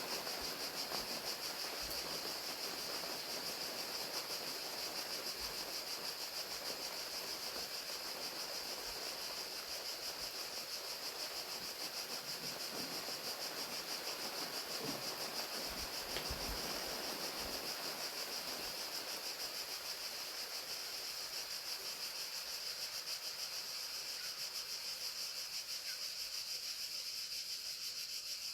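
Crickets chirping in a steady high-pitched trill over the even hiss of falling rain, the rain easing a little near the end.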